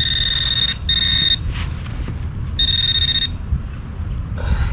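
Garrett AT Max metal detector sounding a steady high beep three times, under a second each, as the coil passes back and forth over a target it reads as a dime (81–82). Wind rumbles on the microphone underneath.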